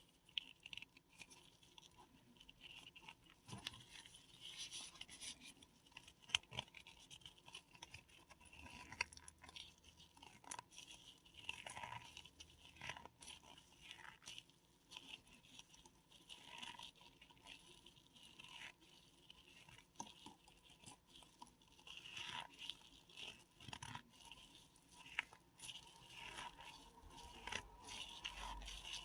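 Paradichlorobenzene mothballs being crushed by hand: faint, irregular crunching and crackling as they break up.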